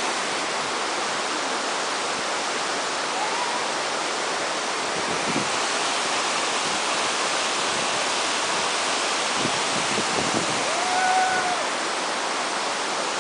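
Steady, dense rush of a waterfall, with two short pitched calls above it, the second and louder one near the end.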